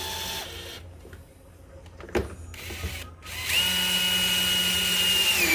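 Power drill driving screws into the power station's case in short bursts. It winds down in the first half-second, there is a click about two seconds in, and from about three and a half seconds in it runs at a steady high whine for two seconds before stopping at the end.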